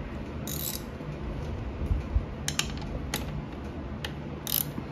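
Ratchet wrench with a 3/8-inch socket on an extension clicking in short, irregular strokes as it snugs down the battery hold-down bracket bolt, worked gently so the bolt is not overtightened or stripped.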